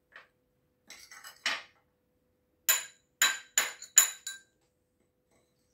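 A steel spoon stirring a vegetable and mayonnaise mix in a small bowl and knocking against the bowl: a few soft clicks, then five sharp clinks in quick succession with a brief ringing tone.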